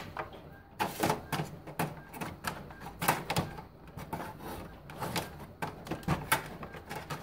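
Irregular light clicks and knocks of the plastic parts of an opened Epson XP-342 inkjet printer being handled and pushed aside.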